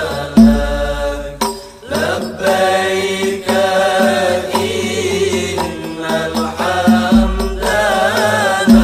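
Background Islamic devotional song: a voice chanting a wavering, ornamented melody over a regular drum beat.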